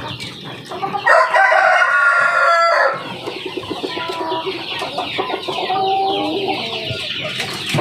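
KUB chickens in their coop: a rooster crows once, one long call starting about a second in, then the hens cluck and call over one another.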